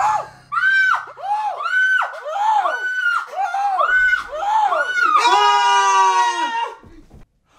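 Young men screaming in fright: a rapid run of short, rising-and-falling screams, then one long held scream that cuts off suddenly near the end.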